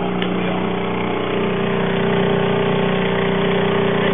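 Outboard motor running at a steady speed, pushing a small boat along: an even engine drone that holds one pitch.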